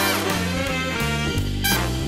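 Swing-style background music with a steady beat and a bass line that steps from note to note.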